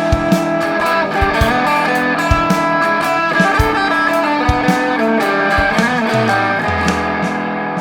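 Background music led by electric guitar, with a steady drum beat, coming to a final held chord.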